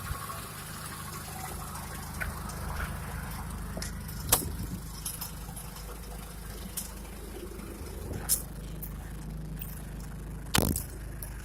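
MK4 Volkswagen Jetta engine idling steadily. A few sharp clicks about 4, 8 and 10.5 seconds in, the last one the loudest.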